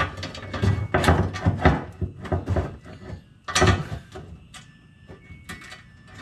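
Irregular clicks, knocks and clatter as bolts and a plastic interior trim panel are handled and started by hand, with one louder knock about three and a half seconds in.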